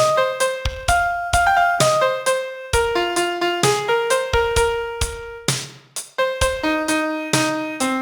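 Piano playing a slow song melody one note at a time, about three notes a second, each note struck sharply and then ringing.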